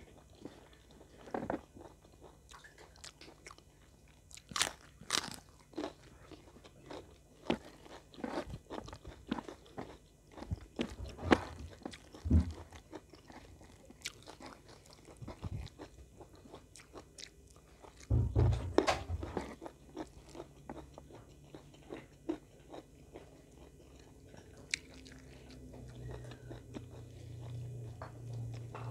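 Close-miked eating: crunchy bites of raw sawi (napa cabbage) leaves and chewing, heard as short, irregular crunches. A louder low thud comes about two-thirds of the way through, and a low steady hum comes near the end.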